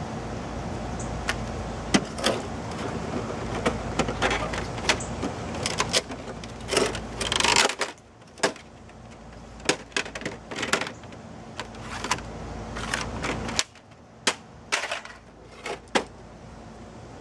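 Plastic housing of an HP printer-scanner being pried and pulled apart by hand: irregular clicks, snaps and knocks as panels come loose and the printer is handled. About seven seconds in there is a longer run of cracking and scraping.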